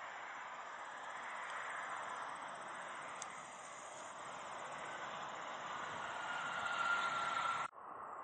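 Jet airliner engine noise at a distance: a steady rush that slowly grows louder, with a steady whine coming in near the end, then cut off suddenly.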